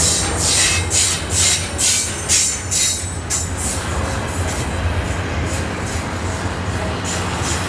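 Freight train rolling by with a steady low rumble. Rhythmic high hissing strokes come about two or three times a second through the first three seconds, ease off, and return faintly near the end.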